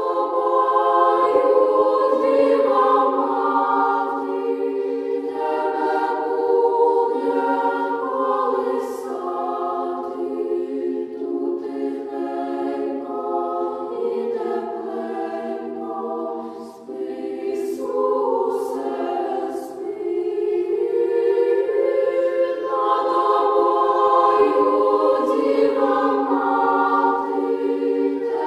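Choir singing a hymn in several parts, holding long chord notes, with a short break between phrases about seventeen seconds in.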